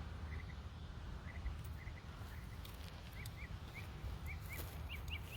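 A small bird chirping short, quick notes over and over, more often in the second half, over a steady low rumble.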